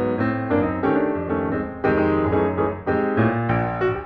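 Background piano music: a steady run of notes and chords.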